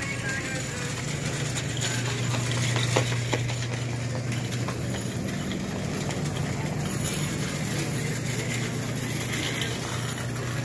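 Child-size metal shopping cart rolling over a smooth store floor on its small wheels, over a steady low hum, with a couple of light clicks about three seconds in.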